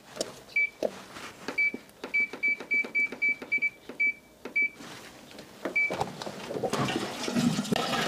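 A top-loading washing machine's control panel beeping: about a dozen short, identical high beeps, each with a small button click, as buttons are pressed to set the spin cycle. Near the end a rushing water noise builds as the machine starts draining the soak water.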